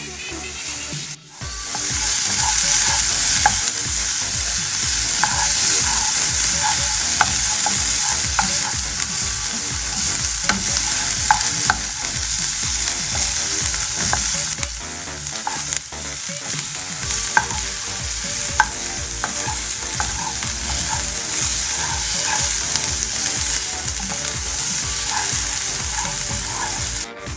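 Chopped red onion sizzling in a nonstick frying pan while a spatula stirs it, with frequent small scrapes and taps of the spatula against the pan. The sizzle drops out briefly about a second in, then comes back louder.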